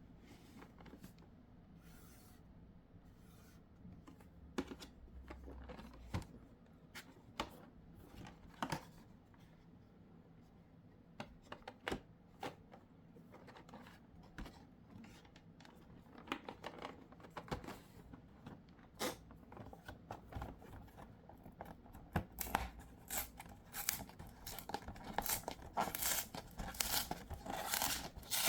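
Cardboard and plastic packaging of a Pokémon card collection box being handled and opened by hand: scattered taps and rustles, turning into denser crinkling and tearing over the last several seconds.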